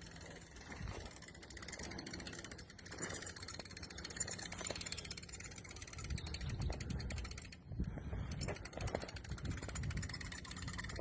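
Rapid ratcheting clicks of a boat trailer's hand winch hauling the boat up onto its trailer, pausing briefly near the middle.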